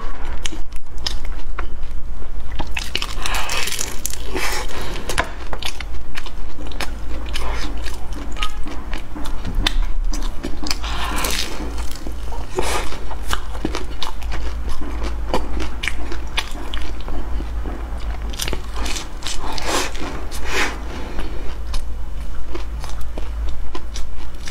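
Close-miked biting and chewing of a bread loaf filled with purple sweet potato and molten chocolate, with many small irregular mouth clicks. A steady low hum runs underneath.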